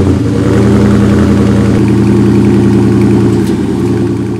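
A 2021 Dodge Charger Scat Pack's 392 (6.4-litre) HEMI V8 idling steadily through its stock 4-inch exhaust tips, fading out near the end.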